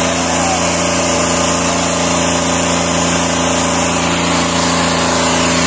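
John Deere 5210 tractor's diesel engine running steadily at a constant speed, its pitch holding level throughout.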